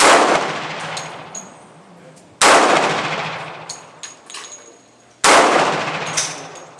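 Three handgun shots fired slowly, about two and a half seconds apart, each followed by a long echoing decay, with fainter sharp cracks in between.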